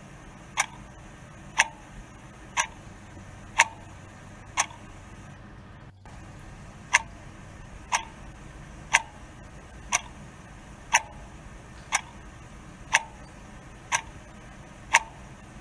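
A clock ticking steadily, about once a second, with a short break about six seconds in.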